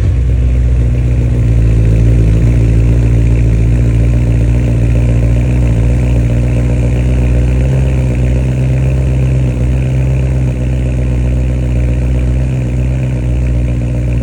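BMW M3's S65 V8 idling steadily through a newly fitted stainless valved axle-back exhaust, a deep, even burble.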